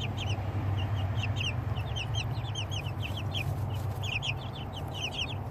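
Young chickens peeping: a constant chatter of short, high, downward-sliding chirps, several a second from more than one bird, over a steady low hum.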